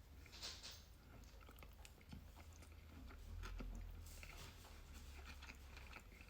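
Close-miked chewing of a spicy crab sushi roll: faint wet mouth clicks and smacks throughout, with a brief louder burst about half a second in.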